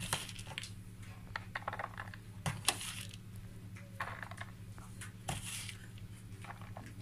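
Chopped nuts dropped by the pinch into a silicone popsicle mould: scattered light clicks and rustles, the sharpest a little before the middle, over a low steady hum.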